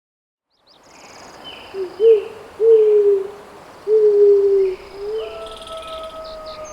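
Barred owl hooting a rhythmic series of low hoots, two short and then two longer drawn-out ones, over forest ambience with faint high bird chirps and insects. A steady held tone comes in about five seconds in.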